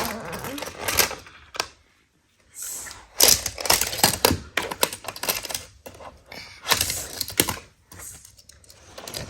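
Hard plastic clicking and clattering of toy cars and playset pieces being handled, in irregular bunches, with a brief dead-silent gap about two seconds in.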